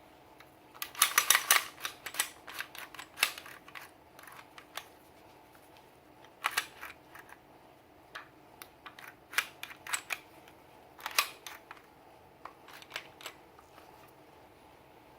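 Sharp clicks and clacks from handling a Sig Sauer P320 pistol during cleaning, coming in short clusters with pauses between them. The loudest run comes about a second in.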